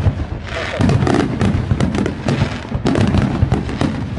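Fireworks going off in a dense, continuous barrage: many sharp bangs and crackles from aerial shells and firecrackers in quick succession, over a heavy low rumble.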